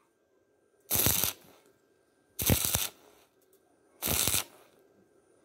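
Stick-welding arc on thin square pipe, struck in short bursts: three brief spells of arc noise about a second and a half apart, with quiet gaps between, as the weld is laid in short stitches.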